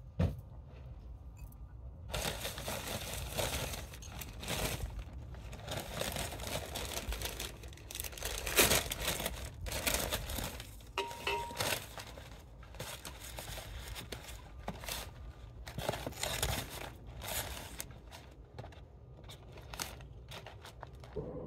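Paper and cardboard takeaway packaging of a KFC Mega Box crinkling and tearing irregularly as it is handled and ripped open.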